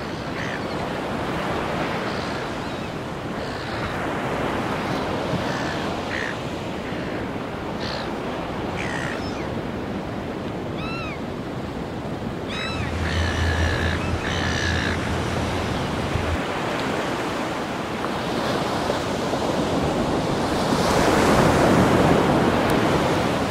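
Ocean surf washing onto a beach, a steady rush that swells louder near the end as a wave breaks. A few short bird calls come in the middle.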